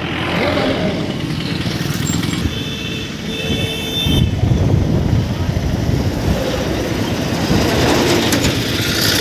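Vehicle running along the road: a steady engine, road and wind rumble that grows a little louder about four seconds in. A high, steady tone, such as a horn, sounds for about a second and a half around the third second.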